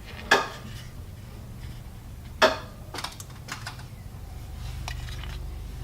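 Objects being handled while unboxing. There are two sharp knocks, about a third of a second and two and a half seconds in, then a few lighter clicks and taps.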